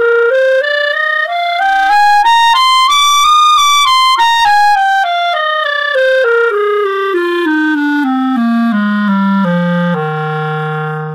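Clarinet played flutter-tongued with rolled R's all the way through an F scale: the notes step up to high F about three and a half seconds in, then step back down to low F, which is held briefly near the end.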